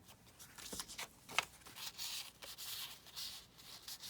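Paper rustling and sliding as it is handled and tucked into a journal page, with a few light taps; the clearest tap is about a second and a half in.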